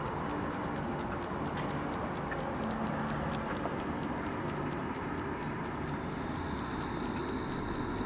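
Steady, regular high-pitched ticking, about four ticks a second, over a low, even background rumble.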